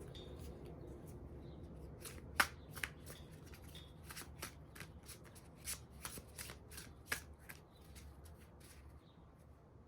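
A deck of divination cards being shuffled by hand: a run of sharp card snaps and flicks starting about two seconds in, thinning out near the end.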